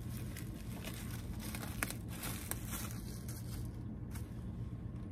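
Clear plastic poly bag crinkling and crackling as a pair of jeans is pulled out of it. The crinkling is busiest for the first three seconds and thins out near the end.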